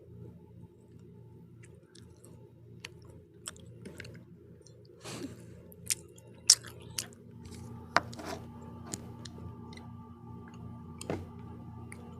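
A person chewing and biting into pizza close to the microphone, with scattered sharp crunches and wet clicks, the loudest cluster about halfway through. A faint steady hum runs underneath.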